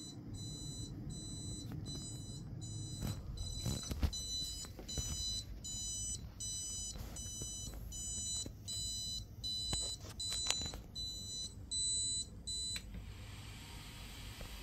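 Prusa MK4 3D printer's buzzer beeping over and over, a shrill beep about three times every two seconds: the printer's error alarm, here for a heatbed port overcurrent fault. The beeping stops a little before the end, leaving a steady hiss.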